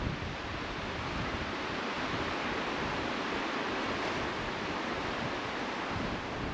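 Wind rushing through forest trees in a steady, even rush that swells a little midway and then eases.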